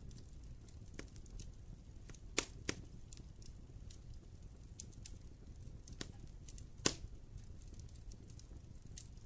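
Wood fire burning in a fireplace, crackling with irregular sharp pops over a low steady rumble of the flames; a few louder pops stand out, two close together a couple of seconds in and one near the middle.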